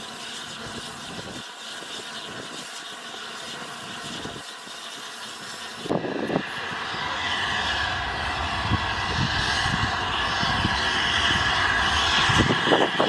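LNER A3 steam locomotive Flying Scotsman, quiet at first, then from about halfway a steady hiss of steam and a run of exhaust beats growing louder as the engine works along the yard.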